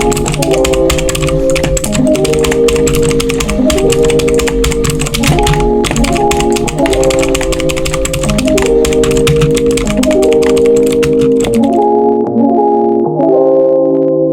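Rapid clacking of a cheap mechanical keyboard's keys being typed on, over background music of sustained organ-like chords. The typing stops about twelve seconds in, and the music carries on alone.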